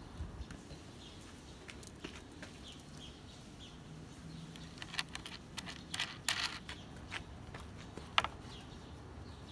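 Faint bird chirps, then from about five seconds in a run of sharp metallic clicks and clinks as a steel socket and ratchet extension are handled and fitted onto a bracket nut. The loudest clink comes a little before the end.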